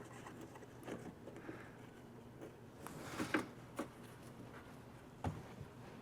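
Faint handling noises: soft rustles and light clicks of small parts being handled, with a short cluster about three seconds in and a single sharper knock about five seconds in, over a low steady room hum.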